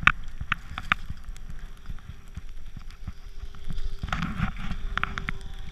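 Wind rushing over an action camera's microphone and snow scraping under a rider sliding downhill, with a few sharp clicks in the first second and a faint steady hum through the middle.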